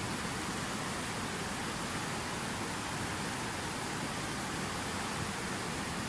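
Fast mountain river rushing over rocks: a steady, even rush of white water.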